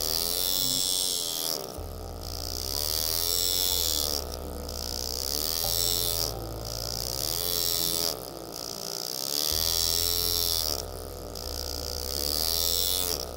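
Pneumatic engraving handpiece buzzing as it cuts scrollwork into a stainless steel knife handle, in about six bursts of a second and a half to two seconds each. Its pitch rises and falls within each burst.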